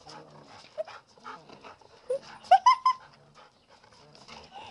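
A dog panting as it plays, with a quick run of short, rising whines about two seconds in.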